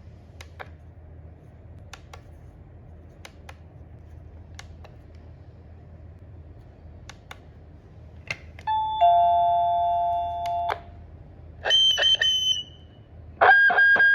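Scattered faint clicks, then an electronic two-note chime stepping down in pitch and held about two seconds, followed by a few short high beeps. It is typical of the V70H device powering up and signalling after its motherboard replacement.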